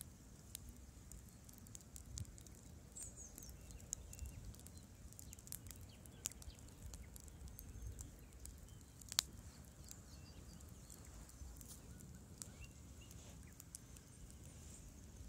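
Campfire crackling with scattered sharp pops, the loudest about nine seconds in, over a soft low rumble.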